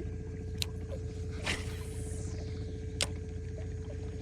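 Boat motor running with a steady hum, a constant whine over a low drone. Three short sharp clicks fall about a second in, in the middle and about three seconds in.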